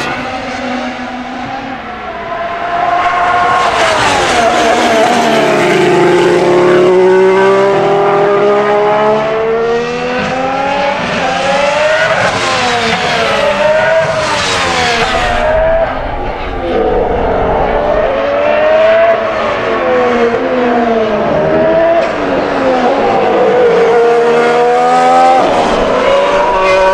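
Ferrari Formula 1 cars' 1.6-litre turbocharged V6 hybrid engines going past at speed, several passes in a row. Engine pitch climbs in steps through upshifts and drops on braking and downshifts. The note falls away as each car passes.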